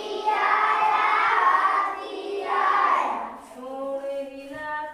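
A group of children's voices calling out together, loud and dense, for about three and a half seconds. After that, one clear voice holds pitched, sung notes.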